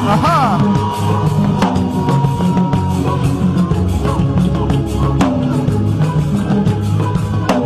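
Loud music with a steady drum beat and heavy bass, with a brief gliding voice line near the start.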